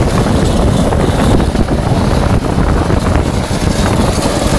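Steady rumble of a vehicle on the move at speed, with heavy wind buffeting the microphone.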